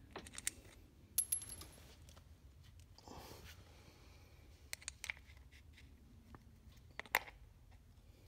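Scattered light metallic clinks and taps of small hardware, nuts and washers, being handled while a compressor wheel is fitted onto its axle. There is a ringing clink a little over a second in, and the loudest pair of clicks comes near the end.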